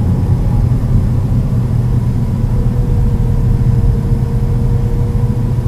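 A car driving along a road, heard from inside the cabin: a steady low engine and road rumble. A faint steady whine joins it for a few seconds in the middle.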